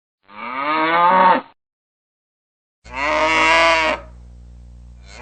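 Cattle mooing: two separate moos of about a second each, the first ending with a falling pitch, followed by a faint steady hum.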